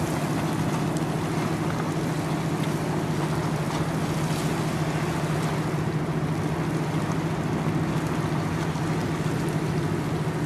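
A steady rushing noise with a constant low hum under it, unchanging throughout.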